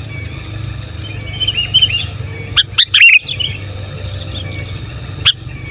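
Sooty-headed bulbul singing: short bubbly warbled phrases about a second and a half in, a louder burst of notes around three seconds, and one sharp note near the end, over a steady low hum.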